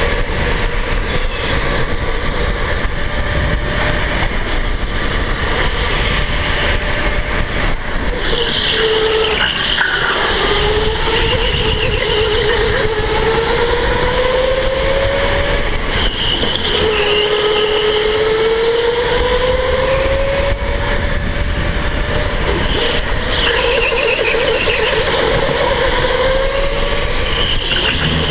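Electric go-kart motor whining under way, its pitch sliding up and down again and again as the kart speeds up and slows for the corners, over a steady low rumble, heard from a camera riding on the kart.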